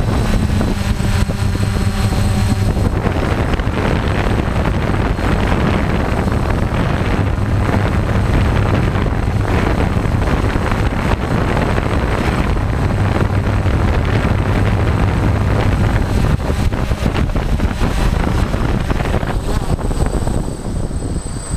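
DJI F550 hexacopter's six electric motors and propellers buzzing steadily, heard through the camera mounted on its frame, with wind buffeting the microphone. Near the end the drone sets down on the ground, its motors still running.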